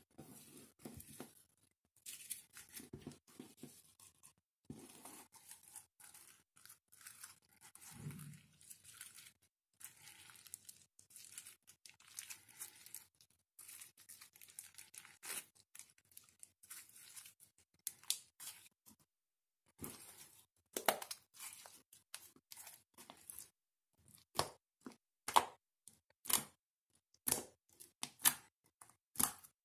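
Sequin-filled slime being stretched, folded and kneaded by hand, giving sticky crackling and tearing sounds as it pulls apart. Later it is squeezed and pressed against the table, and the sound turns into a string of sharp clicks and pops.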